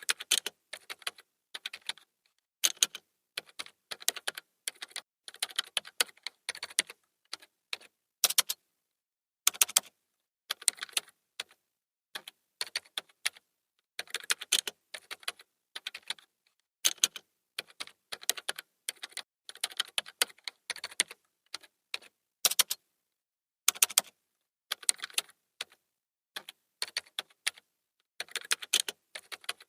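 Typing on a computer keyboard: quick runs of key clicks in bursts of a second or two, broken by brief pauses, with a few louder single strokes such as a spacebar or enter key.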